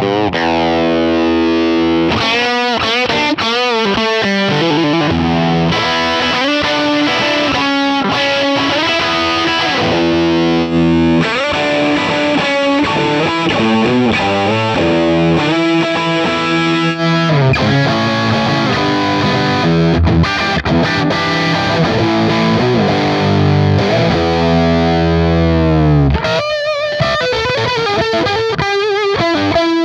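Overdriven electric guitar riffs and chords from a Suhr S-style guitar played through a Universal Audio UAFX Lion '68 Super Lead amp pedal, emulating a Marshall Plexi. The pedal's bonus speaker-cabinet emulations are heard in turn: a 1x12 EVM12L 200W cab, then a ported British 65W cab.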